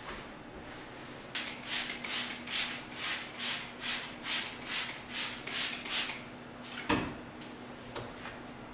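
Cloth wiping back and forth on a kitchen cabinet door in about a dozen even strokes, two to three a second. The strokes stop, and after them comes a single sharp knock, the loudest sound.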